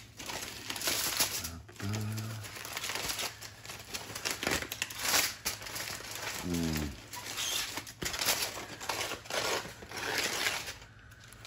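Aluminium foil crinkling and rustling in uneven surges as gloved hands unwrap and peel back several layers of it.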